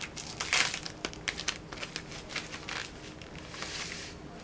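Clear plastic packaging bag crinkling as it is handled, in irregular crackles, loudest about half a second in.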